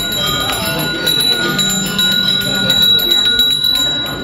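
A Balinese priest's genta, the brass hand bell, ringing continuously as it is shaken during the ritual, with a steady high ring.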